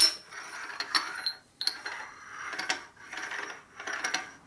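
A pair of steel machinist's parallels clank together, then are worked against each other in several back-and-forth strokes, giving a gritty metal-on-metal grating with a light ring. The rough sound is the sign of burrs on the parallels.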